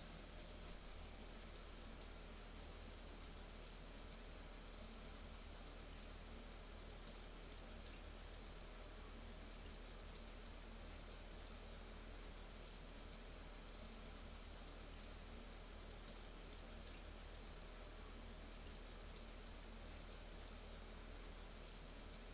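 Shower spray running steadily: a faint, even hiss of falling water.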